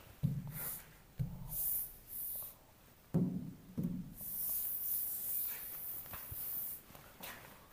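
A palm rubbing across the glass of an interactive touchscreen board to erase writing: a few soft thumps as the hand lands on the screen, and stretches of hissing swish as it wipes.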